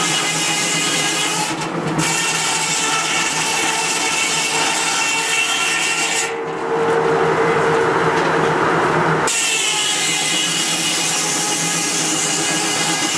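Antique circular sawmill's large blade spinning with a steady ringing whine, then biting into a log on the carriage about halfway through: for about three seconds the whine gives way to a deeper, rougher cutting noise before the blade clears the wood and rings freely again.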